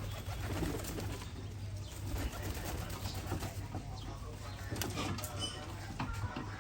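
Pigeons cooing while feeding on rice, with scattered sharp taps from pecking and brief wing flutters over a steady low hum.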